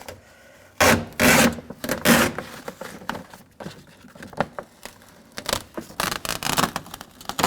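Plastic vapor barrier being peeled back off a truck door's inner frame: scraping noises in a couple of bursts, then a run of short clicks near the end.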